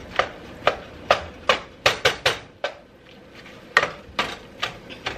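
A meat chopper utensil knocking and scraping against a stainless steel skillet as it breaks up browning ground turkey and onion. About a dozen sharp, irregular knocks, with a pause of about a second midway.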